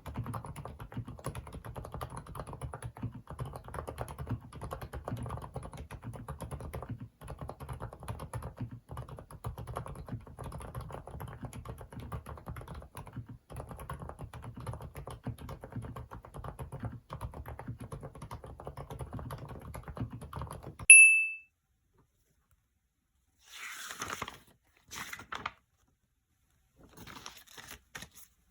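Typing on an FL-ESPORTS CMK75 keyboard with Kailh silent cream linear switches: soft, muted keystrokes in a steady stream for about twenty seconds. The typing stops and a short, loud, high ding sounds, followed by a few brief noises.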